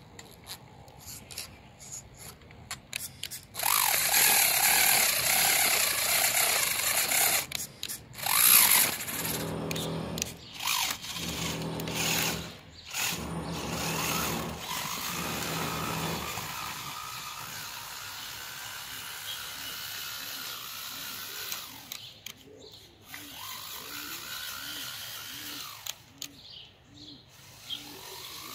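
Homemade RC 6x6 truck running on gravel, its small electric drive motors whining in stop-start bursts through the first half, then running more quietly as it pulls away.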